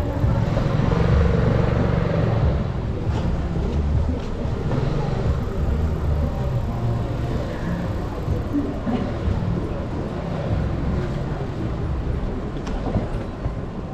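City street ambience: road traffic with a steady low rumble and a few faint clicks.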